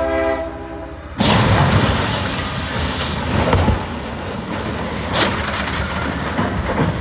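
Freight locomotive horn sounding briefly, then about a second in a sudden loud crash as the locomotive strikes a tracked excavator on a lowboy trailer, followed by several seconds of loud, noisy crashing with another sharp bang about five seconds in.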